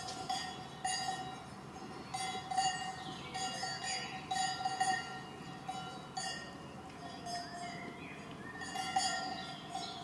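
Brass cowbells on cows' leather collars clanking irregularly as the animals move, each strike ringing on with a clear steady tone.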